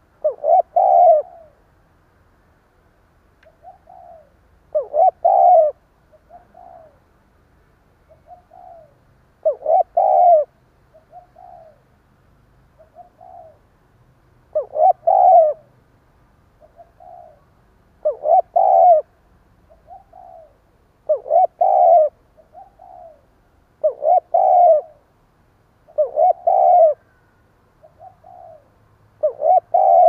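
Spotted dove cooing in repeated phrases about every three seconds, each a soft lead note followed by a loud, broken run of coos. This is the stuttering 'cà lăm' coo sought in decoy doves.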